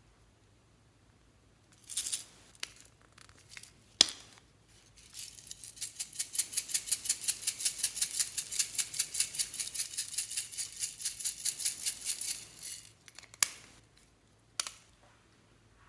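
Small plastic Hello Kitty container shaken hard over a bowl, its loose contents rattling in a fast, even rhythm of several shakes a second for about seven seconds. A few sharp plastic clicks come before and after the shaking.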